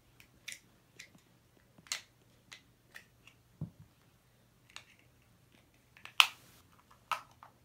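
Small plastic toy pieces clicking and tapping together in a child's hands: scattered, irregular clicks, the loudest about six seconds in, with a soft thump about three and a half seconds in.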